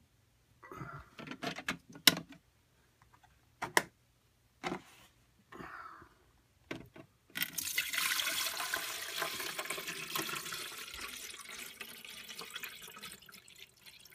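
A few knocks and clicks of the machine being handled, then from about seven seconds in a Keurig 2.0 brewer starts filling its internal heating tank with water at the start of preheating: water running and hissing, slowly fading.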